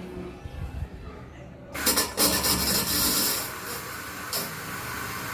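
Loud scraping and rubbing that starts suddenly partway through and lasts about two seconds, then eases to a quieter rubbing, over a low rumble with small knocks.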